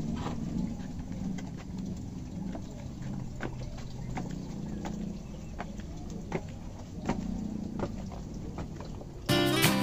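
Footsteps on the ground, about two a second, over a steady low background rumble. Strummed acoustic guitar music starts near the end.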